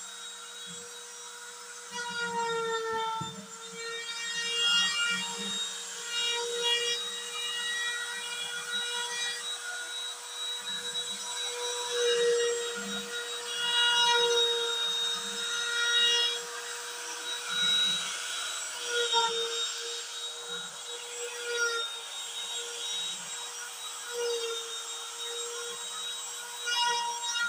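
DIY CNC router carving MDF: its trim-router spindle runs at a steady high whine, while the stepper motors add shifting, stepping tones as the axes move the cutter through the lettering.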